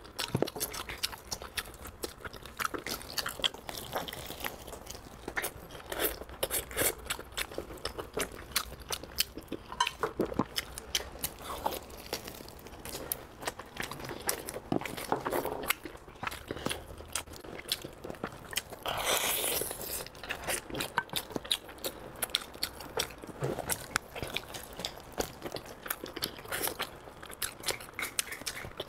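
Close-up eating sounds of pork on the bone: a steady run of wet biting and chewing clicks with small crunches. A longer noisy rush comes about nineteen seconds in.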